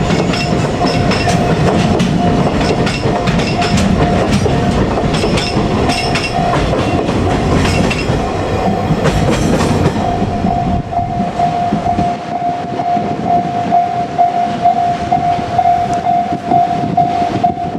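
A freight train's wagons rolling past, wheels clicking rhythmically over rail joints, while a level-crossing alarm rings steadily. The train noise falls away about ten seconds in, leaving mostly the crossing bell.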